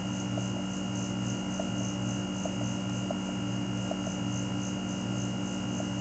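Steady low machine hum with a thin, steady high whine above it and a few faint soft ticks.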